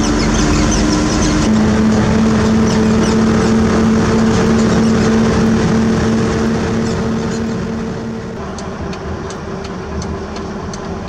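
Heavy diesel engine running steadily, getting quieter about eight seconds in, with scattered light clicks and knocks.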